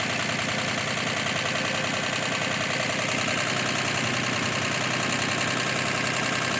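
Humber Super Snipe's straight-six engine idling steadily, just started on part choke.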